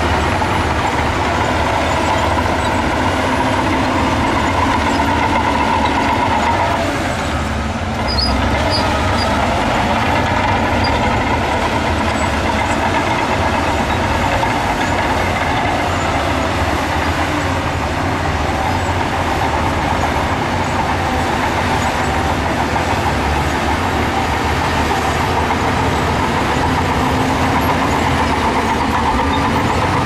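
Heavy diesel earthmoving machinery working: a steady, loud engine drone with a whine over it. The sound dips briefly about seven seconds in.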